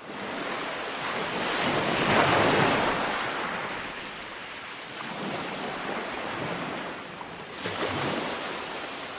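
Ocean waves washing in, a steady surf hiss that swells twice, loudest about two seconds in and again near the end.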